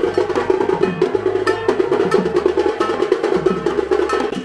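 Dhak, the large Bengali barrel drum, beaten with thin sticks in a fast, continuous rhythm of dense strokes.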